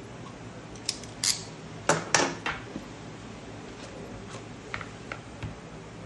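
A box cutter scratching through the seal stickers of a cardboard smartphone box as the box is handled and opened. There are a handful of short sharp scrapes and clicks, the loudest a few strokes about two seconds in, then a few fainter taps near the end.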